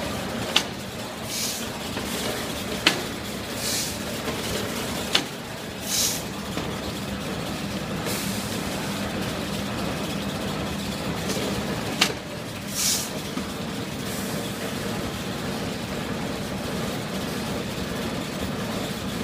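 Volumetric cup filling machine running with a steady hum. A sharp click comes about every two and a half seconds, each followed about a second later by a short hiss, three times in the first six seconds and once more about twelve seconds in. Each click-and-hiss fits one filling cycle at 25–30 jars a minute. After that only the hum goes on.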